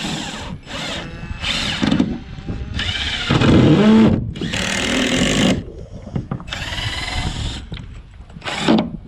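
Power drill driving fasteners to anchor a piece, run in about seven short bursts. The longest burst, in the middle, has a motor whine that rises as the drill spins up.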